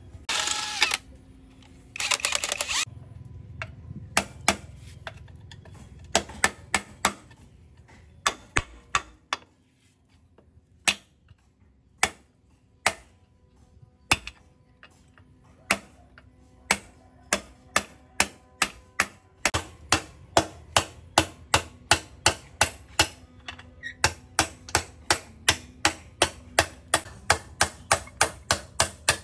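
Light hammer tapping, a few scattered blows at first and then settling into a steady run of about two to three taps a second. Two short hissing bursts come near the start.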